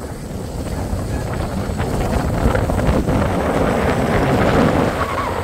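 Wind rushing and buffeting over the microphone of a rider swinging through the air on a Starflyer chair-swing tower ride. The low rumble swells in the middle and eases near the end.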